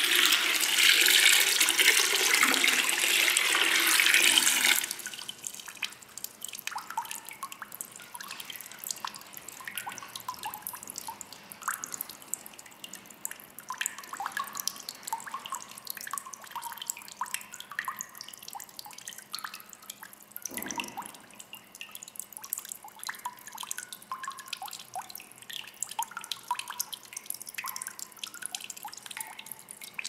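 Water poured from a plastic jug splashes into a stone fountain basin for about five seconds and stops suddenly, followed by many small drips plinking on the water in the basin.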